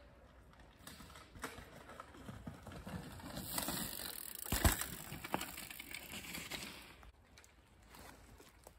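Downhill mountain bike rolling over a forest dirt trail, its tyres crunching louder as it comes close and passes, with one sharp thump midway as it goes by, then fading away.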